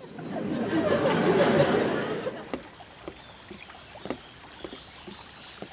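Rustling noise, then footsteps crunching on a woodland trail, about two steps a second, through the second half.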